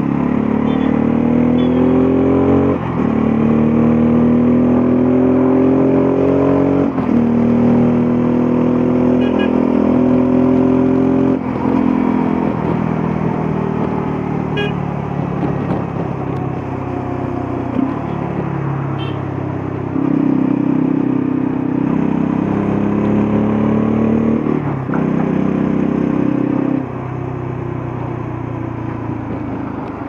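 Bajaj Pulsar F250's single-cylinder engine and exhaust under way, pulling up through the gears. The pitch climbs and falls back at three upshifts in the first dozen seconds, then runs steadier. It pulls up again past the twenty-second mark and goes quieter as the throttle closes near the end.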